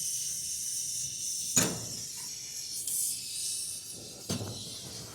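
Small Ambro Controls torch flame hissing steadily while heating a brazed refrigerant line joint on a rooftop unit compressor, with two short knocks about a second and a half in and near the end.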